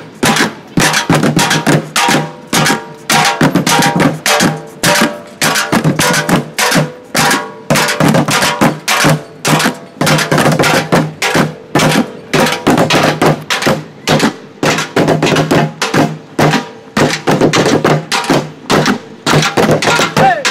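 Percussion music driven by drums, a fast steady beat of about three loud strokes a second over a held low tone.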